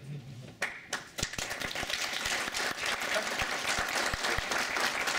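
Audience applause: a few claps start about half a second in, then it builds into steady clapping by a room full of people from just over a second in.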